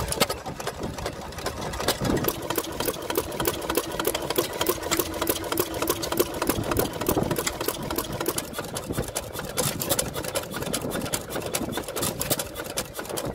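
Several vintage stationary engines running together, giving a fast, uneven clatter of firing strokes and valve-gear knocks.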